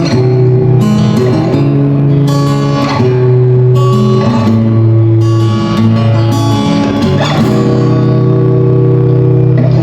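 Guitar music: sustained plucked chords that change every second or so.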